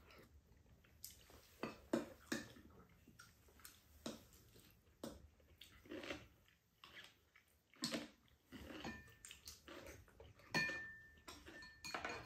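People eating at a table: chewing and mouth noises, with occasional clinks of spoons and chopsticks against bowls, coming and going irregularly.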